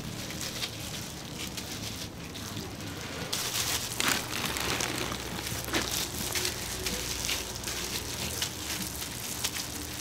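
A plastic bag and a disposable plastic glove crinkling and rustling as a hand rummages in the bag for a ball of hotteok dough, with the rustling getting busier after about three seconds. A steady low hum sounds underneath.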